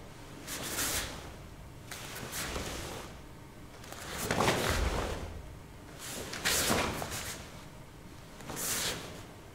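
Karate gi fabric snapping and swishing with each sharp block and punch of a kata, about five quick swishes a couple of seconds apart, with a dull thump about halfway, as of a bare foot stepping onto the foam mat.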